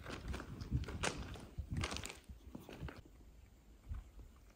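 Footsteps crunching on railroad-track gravel ballast, a few slow steps about a second apart that die away after about three seconds.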